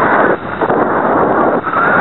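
Onboard camera microphone on a Super Cub LP RC airplane picking up its geared electric motor and propeller, mixed with wind rushing over the airframe. The gearbox is broken. The level dips briefly twice.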